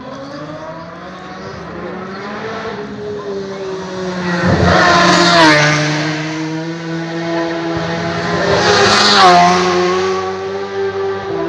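Senior TT racing superbikes going past at full throttle, two loud passes, one about five seconds in and another about nine seconds in. Each engine note climbs as the bike approaches and drops sharply as it goes by.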